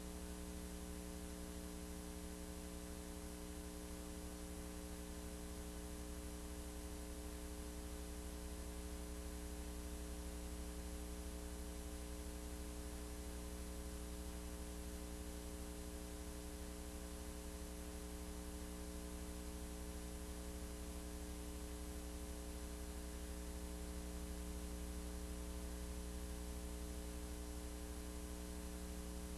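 Steady electrical mains hum with a constant hiss, unchanging throughout; no rhythmic machine clatter can be heard.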